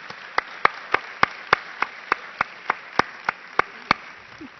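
Audience applauding, with one person's sharp claps standing out close to a microphone, about three a second, stopping shortly before the end.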